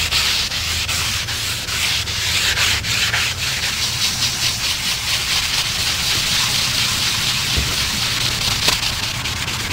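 Hand-sanding of an Old Town canoe's black gunwale: a steady scratchy rubbing in quick back-and-forth strokes, taking off shallow surface scratches before painting.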